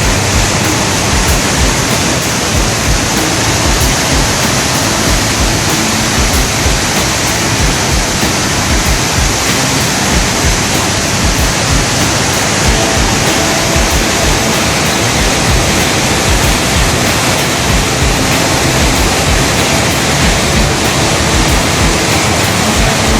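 Loud, steady rush of Khone Phapheng Falls, the great cascade of the Mekong River: a dense, unbroken wash of falling and churning water.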